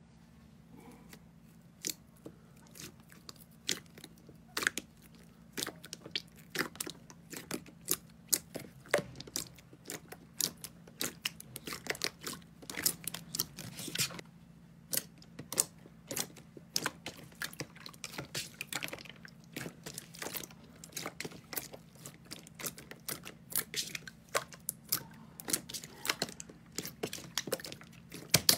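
Crunchy slime being squeezed and pressed by hand: a run of irregular crackles and pops that grow denser and louder partway through, over a low steady hum.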